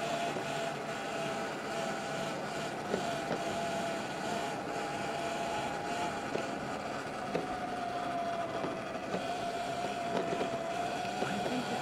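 Electric bike riding on a dirt road: a steady motor whine that drifts slightly in pitch, over wind and tyre noise, with scattered clicks and knocks from the rough ground.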